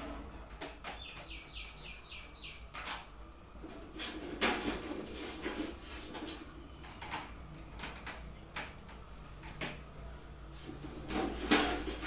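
A bird chirps a quick run of about seven short, high notes about a second in, amid scattered sharp clicks and knocks.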